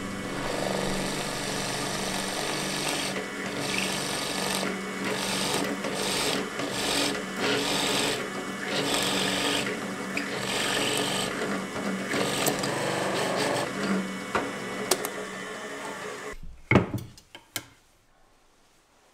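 Drill press running with a hole saw cutting into spalted wood: a steady motor hum under a rough, rasping cutting noise that swells and eases as the cutter is fed. About 17 s in it stops, followed by a few sharp knocks, then near silence.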